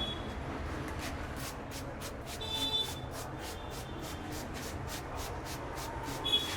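Hands tapping quickly and rhythmically on the head in a percussive head massage, about four light taps a second, over a low steady rumble. A short high tone sounds twice, about two and a half seconds in and again near the end.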